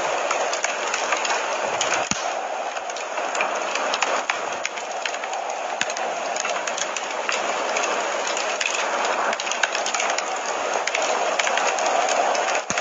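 Wood fire crackling in a fireplace: a steady hiss dotted with many small sharp pops and snaps.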